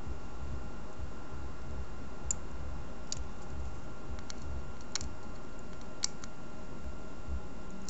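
A handful of separate small, sharp clicks and ticks of a small screwdriver and parts being handled on an opened iPhone, over a steady low hum.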